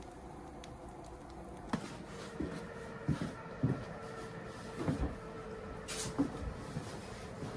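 Irregular light knocks and clunks of objects being handled in a small room, starting about two seconds in, over a steady background hiss.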